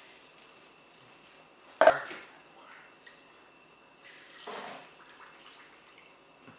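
A sharp knock about two seconds in, then water poured for about a second, around four and a half seconds in, while making couscous.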